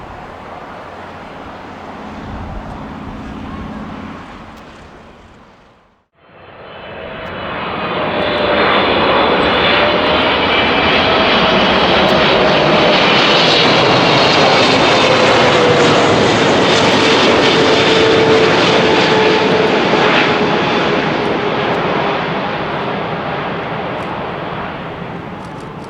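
A jet airliner passing close by, its engine noise swelling up, holding loud with a high whine and a lower tone that slowly falls in pitch, then fading away. Before that, quieter background noise cuts out abruptly about six seconds in.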